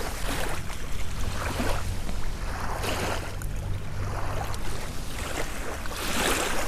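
Wind and lapping water, rising and falling in swells, over a steady low hum.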